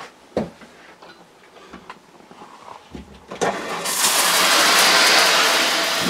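A few light handling clicks, then about three seconds in the RV's ShurFlo 12-volt diaphragm fresh water pump kicks on with a low hum and water gushes from the shower faucet in a loud, steady hiss.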